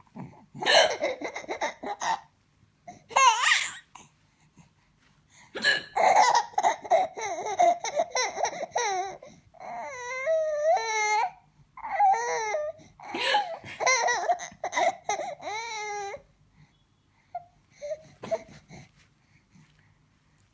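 A baby laughing in repeated bursts of giggles and squeals with short pauses between, then quieting near the end.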